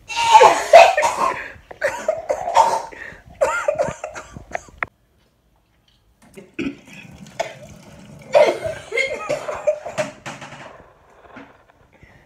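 A person coughing in bouts, most likely after gulping down a raw egg. The sound breaks off suddenly about five seconds in, leaving a second or so of dead silence, then the coughing resumes.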